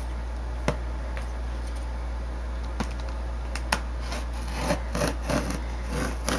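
Scissors working at the packing tape on a cardboard box. A few sharp clicks come spaced apart, then a quicker run of snips and scraping begins about four and a half seconds in, over a steady low hum.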